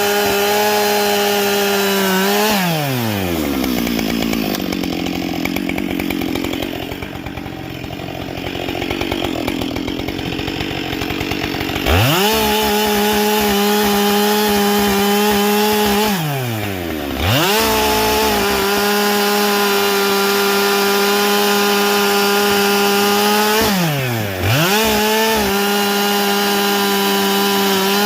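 Husqvarna 572XP two-stroke chainsaw, fitted with a carbide chain on a 20-inch bar, running at full throttle and cutting wood. The high steady engine note drops as the chain bites into the cut, and about eight seconds of noisy sawing follow. About twelve seconds in it jumps back to a free-revving scream, dipping briefly twice and falling off again near the end.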